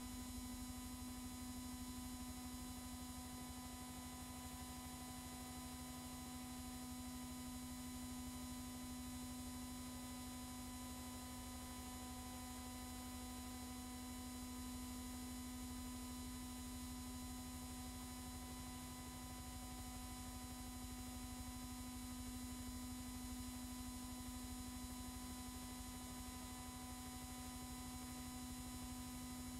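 Steady electrical hum with a faint hiss, unchanging throughout. The soundtrack of a silent newsreel holds no sound of the boats or the sea.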